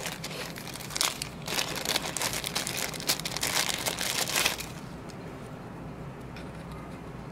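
Clear plastic packaging bag crinkling in the hands as a charger and data cable are unwrapped. The crinkling stops about two-thirds of the way through, leaving a few faint clicks.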